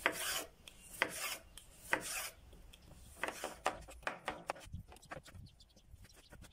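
Chef's knife cutting fresh cucumber into thin strips on a bamboo cutting board. A few slower rasping slicing strokes come first, then a quicker run of light knocks of the blade on the board.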